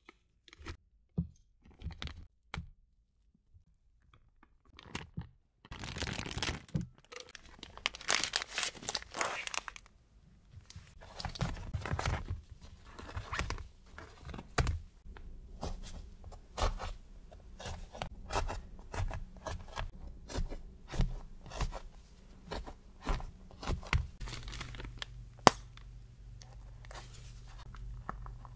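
Gloved hands handling crisp baked choux eclair shells on a metal baking tray: irregular crunches, crackles and light taps, with a louder noisy crinkling stretch a few seconds in. At the start, a silicone spatula scrapes thick raspberry cream into a plastic piping bag with soft clicks.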